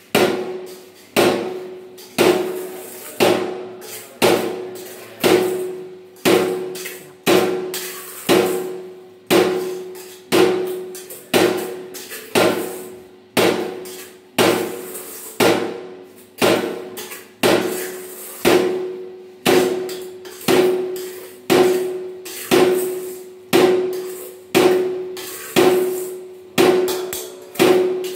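Mortar jolting table compacting fresh cement mortar in a steel three-gang prism mould. The table drops onto its stop with a sharp metallic knock about once a second, and each knock rings briefly.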